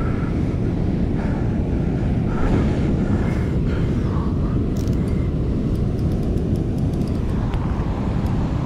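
Steady roar of river water rushing down a concrete spillway, with a few faint ticks.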